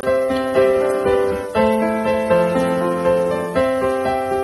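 Background piano music, notes and chords struck every half second or so and fading between strikes.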